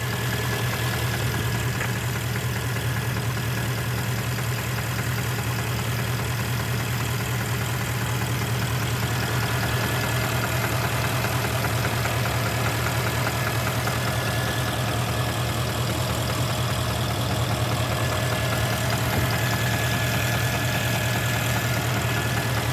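Porsche Panamera 4.8-litre V8 idling steadily when fully hot, with a knock that comes only at hot idle and goes away once the revs rise toward 1000 rpm. The owner wonders whether it is cylinder scoring.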